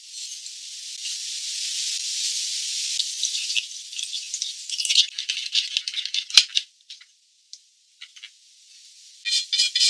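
A sauce being mixed in a ceramic bowl: a steady hiss of pouring over the first few seconds, then a quick run of metal spoon clinks and scrapes against the bowl as it is stirred, a short pause, and a few more clicks near the end.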